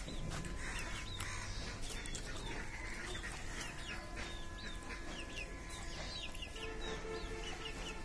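Small birds chirping busily: many short, high, downward-falling chirps in quick succession. A few faint steady tones join in about halfway through.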